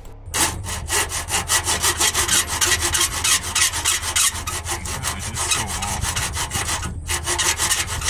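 Hacksaw cutting through a stripped screw in a microwave oven's sheet-metal casing: rapid, steady back-and-forth strokes of metal on metal, a pretty awful noise, with one short pause about seven seconds in.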